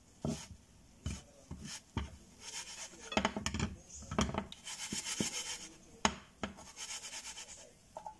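Metal spatula scraping and tapping against a frying pan while a pancake is worked loose and turned, with the pan knocking and sliding on a glass cooktop: several sharp knocks and short stretches of scraping, busiest in the middle.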